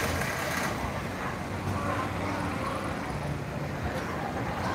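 City street ambience heard from above: motorbike and tuk-tuk engines running and passing, with distant voices from the street.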